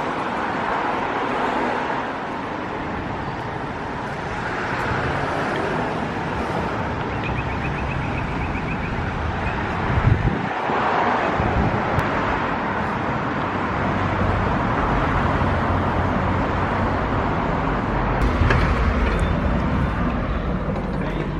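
Steady road-traffic noise, with a low rumble that grows stronger about two-thirds of the way through and a single knock about ten seconds in.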